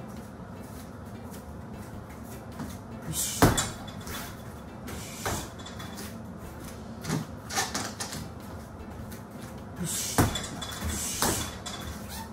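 Six or so scattered thuds and slaps during a kickboxing heavy-bag round, sharp and irregular, the loudest about three and a half seconds in, over a low steady room hum.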